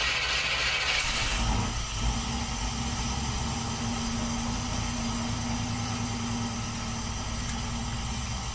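A 1967 Camaro's engine, on a newly fitted ACES Killshot throttle-body fuel injection, cranks briefly on the starter, catches about a second and a half in, and keeps running steadily. It is the first start on the new, still untuned injection.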